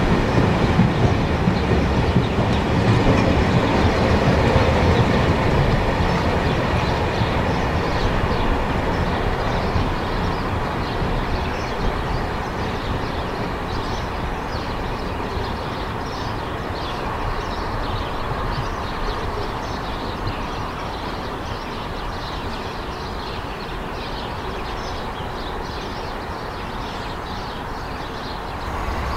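Wagons of a potash freight train rolling past, their wheels clattering and rumbling on the track, the sound fading slowly as the train draws away.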